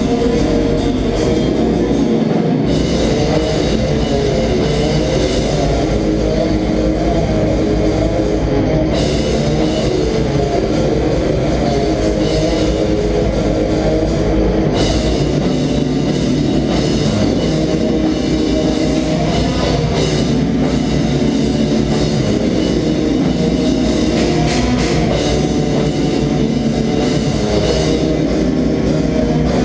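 Black metal band playing live: distorted electric guitars, bass and a drum kit, loud and dense throughout, with a brief break in the low end about two seconds in before the full band comes back in.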